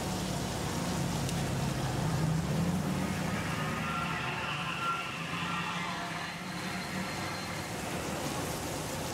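Steady background noise of a busy street-food stall: a low hum under an even hiss, with faint voices in the background.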